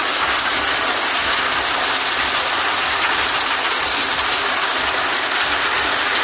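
Heavy hail falling, heard as a loud, steady, dense patter of countless small impacts.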